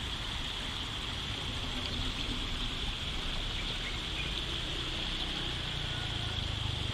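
Steady outdoor noise beside a busy road: a low rumble of road traffic, louder from about five and a half seconds in, under an even high hiss.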